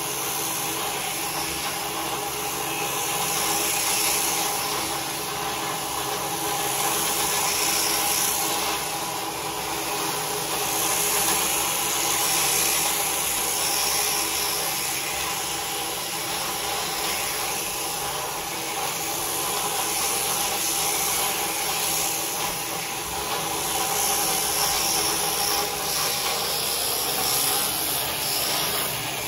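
Electric sheep shears running steadily, a motor hum with the hiss of the cutters going through the fleece.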